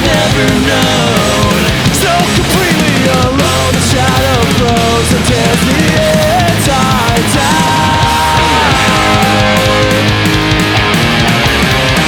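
Instrumental passage of metal-tinged melodic punk rock: loud distorted electric guitars playing a winding lead melody with pitch bends over bass and busy drums and cymbals.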